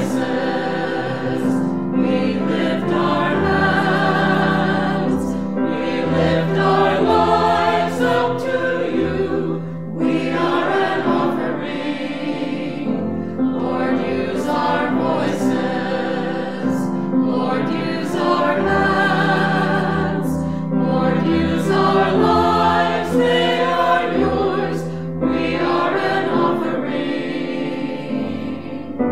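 Background music: a choir singing, in sung phrases over a steady low accompaniment.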